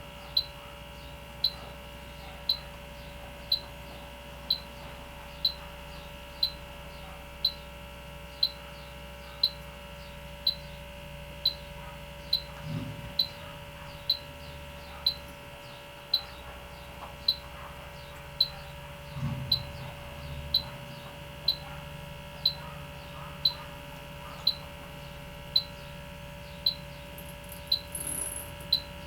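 An H10 electronic refrigerant leak detector beeping steadily about once a second as it scans a refrigerant coil, the rate never speeding up, so no leak is being picked up. Two soft bumps come partway through.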